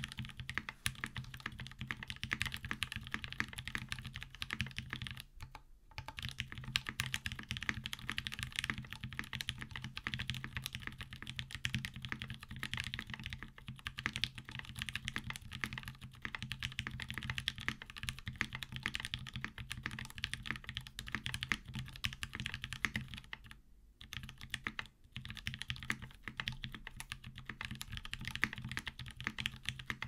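Continuous typing on a custom LSJ Ares mechanical keyboard with Gateron Ink switches lubed with Krytox 205g0, a carbon fibre half plate, GMK Camping keycaps and a 1 mm neoprene sheet inside to dampen the sound. The keystrokes come in a steady stream, with brief pauses about six seconds in and around twenty-four seconds.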